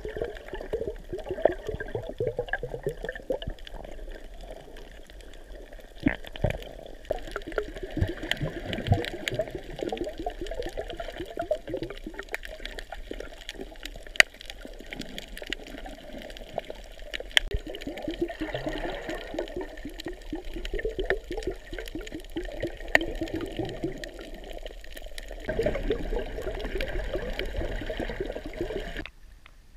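Muffled underwater sound of a submerged camera: water churning and bubbling, with scattered sharp clicks and crackles. It cuts off abruptly near the end.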